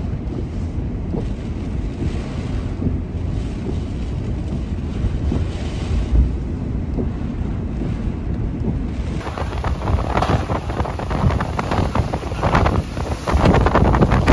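Hurricane wind and driving rain: a steady low rumble of wind and rain on a storm-swept highway. About nine seconds in it becomes gusty hurricane wind buffeting the microphone, with rain, in several strong surges.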